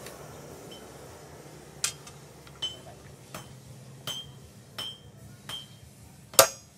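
Hand hammer striking red-hot steel on an anvil while forging a machete: about seven ringing blows at an even pace, roughly 0.7 s apart, starting about two seconds in. The last blow, near the end, is the loudest.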